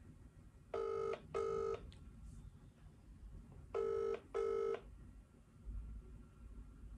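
British double-ring ringback tone through a smartphone's speaker: two double rings about three seconds apart, the line ringing while the call waits to be answered.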